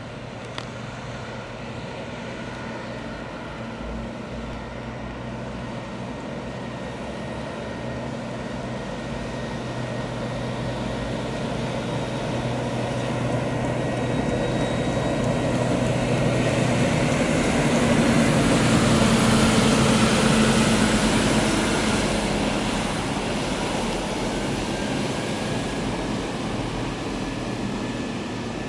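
The AutoTram Extra Grand, an extra-long articulated bus, driving past: the hum of its drive and the rush of its tyres grow louder, peak about two-thirds of the way through, then fade as it moves away.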